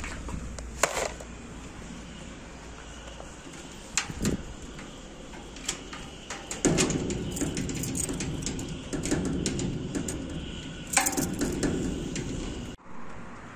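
Metal handling noises: scattered sharp clicks and knocks, then a denser stretch of rattling and scraping as the lever handle and key lock of a metal container door are worked. This stretch cuts off suddenly near the end.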